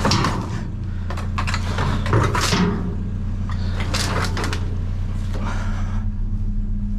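Scrap metal and debris clattering and scraping inside a dumpster as pieces are hooked and dragged loose: several separate knocks and scrapes over a steady low hum.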